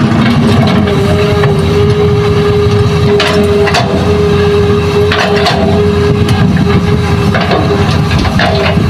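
Hitachi hydraulic excavator's diesel engine running hard with a steady whine. The bucket digs through rocky earth with several clunks and scrapes of rock against steel.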